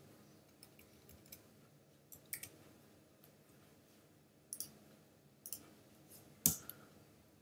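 Faint computer keyboard keystrokes, a few separate key presses at a time with pauses between them, the loudest one about six and a half seconds in.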